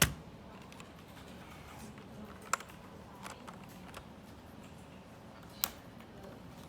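Keys of a transparent 65% mechanical keyboard pressed one at a time: a few separate sharp clicks spread over several seconds, the loudest at the very start, then about two and a half and five and a half seconds in, with fainter ticks between.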